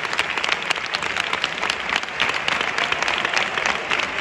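Crowd applauding: many hands clapping densely and steadily.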